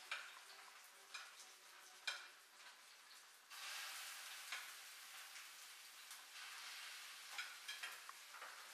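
Food sizzling quietly in a frying pan, a steady hiss that grows louder about three and a half seconds in. A cooking utensil clicks against the pan several times as the food is stirred.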